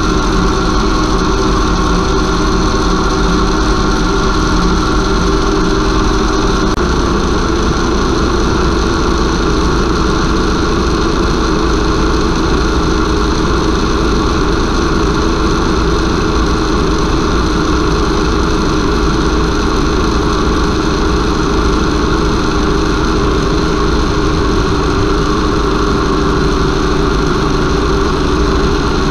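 Converted car alternator running as a brushless motor, driven by a small 30 A drone ESC at a 30 A load and belt-driving a second alternator: a loud, steady motor hum with several held tones. The low part of the tone changes abruptly about seven seconds in.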